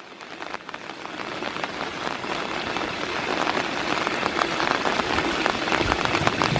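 Heavy rain falling, with many close raindrop hits ticking over a steady hiss, growing steadily louder.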